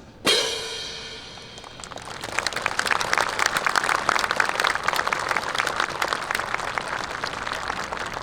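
A last loud drum stroke rings out, then a crowd starts applauding about two seconds in and keeps clapping steadily.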